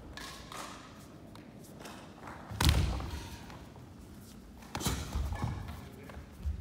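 Thuds from Nippon Kempo sparring in padded armour and gloves on a wooden floor: one loud thud about two and a half seconds in, then a quick run of several thuds around five seconds, and one more near the end.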